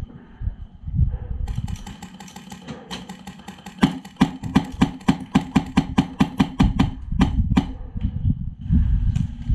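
HPA airsoft rifle with a Polarstar Jack engine firing a rapid string of semi-auto shots, about six sharp pops a second for roughly four seconds, starting about four seconds in. Low bumps of movement and handling come before and after.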